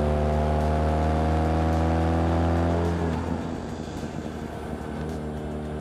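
BMW K1600GT's inline-six engine pulling steadily under throttle, its note rising slowly as the bike gathers speed. About three seconds in, the engine note drops back under wind and road noise, and it returns more faintly near the end.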